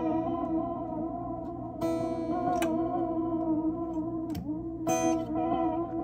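Guitar chords played through a Binson Echorec 2 echo unit, ringing on with new strums about two seconds in and again about five seconds in, with a brief dip in pitch just before the second strum.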